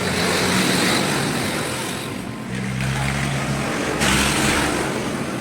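Car engine being revved through its exhaust: a loud exhaust note that swells and eases, with a sudden louder surge about four seconds in.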